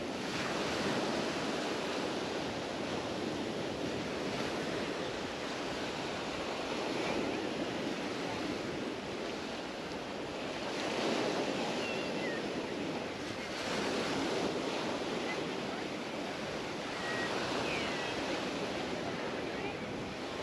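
Mediterranean surf breaking and washing up the beach, a steady rush that swells with each wave every few seconds.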